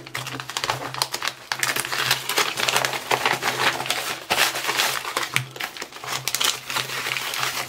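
Padded kraft-paper mailing envelopes being torn open and handled: continuous irregular crinkling and crackling of stiff paper.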